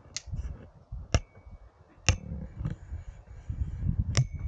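A border collie stepping along a deck-board walkway: soft low thumps of its paws with four sharp clicks, two of them leaving a short ring.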